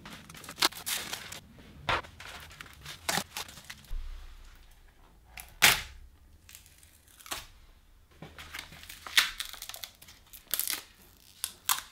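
Adhesive tape being pulled off the roll and torn in a series of about a dozen short rips, with plastic sheeting crinkling as the tape is wrapped around it.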